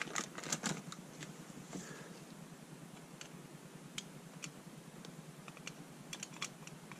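Faint clicks and taps of a screwdriver and small metal parts against a Mikuni VM22 carburetor body during hand reassembly: a quick cluster of clicks in the first second, then scattered single clicks.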